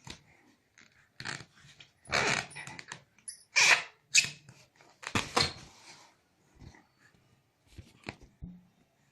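A series of about five short, harsh, bark-like cries, loudest near the middle, with a few faint ones near the end, heard in a small room.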